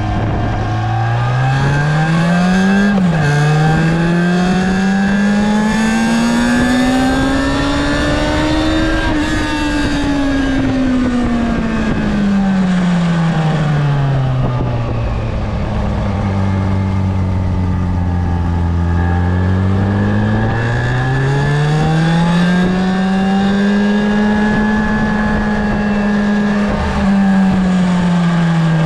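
Yamaha FZ6 Fazer's inline-four engine on its stock exhaust, revving up with a quick drop in pitch about three seconds in, like an upshift. It climbs again, then its note falls away as it slows, holds low and steady for a few seconds, and rises and falls once more near the end.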